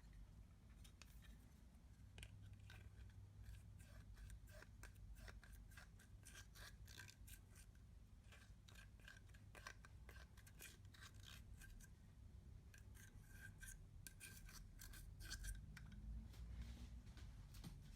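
Quiet, rapid clicks and scrapes of makeup being broken up and worked into clear slime.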